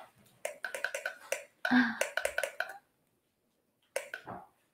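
A quick run of clicks, the button of a plastic blood pressure monitor pressed over and over without the monitor starting up. A brief voice sound falling in pitch follows about four seconds in.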